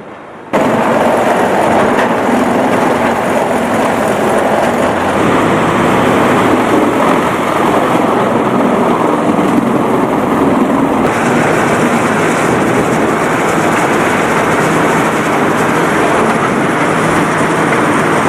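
CBI 8400 industrial grinder running and shredding creosote-soaked railroad ties and debris: a loud, dense grinding noise that starts abruptly and then holds steady, turning brighter and hissier about eleven seconds in.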